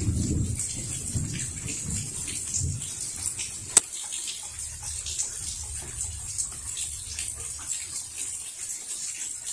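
Rain falling and splashing steadily, with many small drips, as a thunder rumble dies away over the first three seconds. A single sharp click comes just under four seconds in, and a faint low rumble follows.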